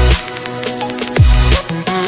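Background electronic music with deep bass hits that slide down in pitch, about one a second, under a steady synth melody.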